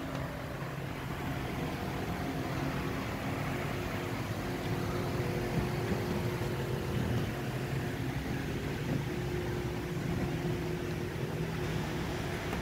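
Steady room ventilation hum with a few faint held tones, an even background noise with no distinct events.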